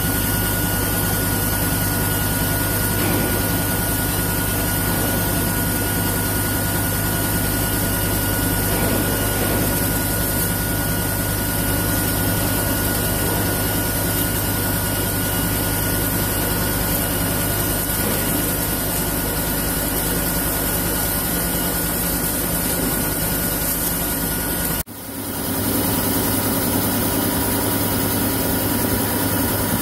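CNC horizontal boring mill rough-milling a titanium bar with a face-milling cutter under coolant spray: a steady machining noise with a constant whine. About 25 s in it breaks off sharply and picks up again within a second.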